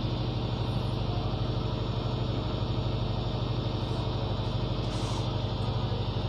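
Steady low drone of a running engine, with a fast, even throb.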